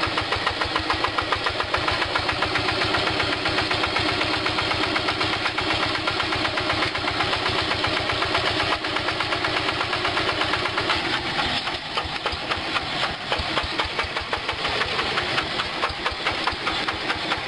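Yanmar two-wheel hand tractor's single-cylinder diesel engine running under load with a rapid, even beat, easing slightly about two-thirds of the way through.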